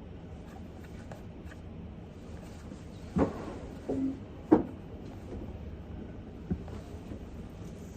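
A few sharp knocks and thumps of objects being handled, bunched together about three to four and a half seconds in, with one softer knock later, over a steady low background hiss.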